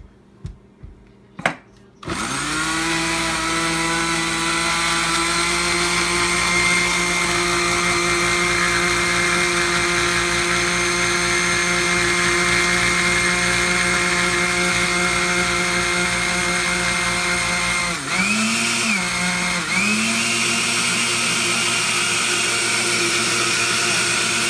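Small countertop blender clicking and then switching on about two seconds in. Its motor spins up and runs steadily, churning a thick smoothie mixture. Near the end the pitch dips twice and recovers.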